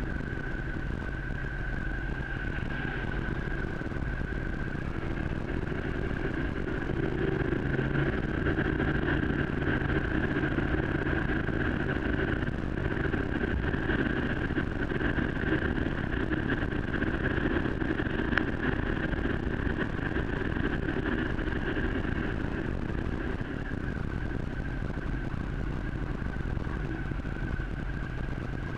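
Motorcycle running steadily on a wet road, with wind and road noise: a steady high whine over a low rumble.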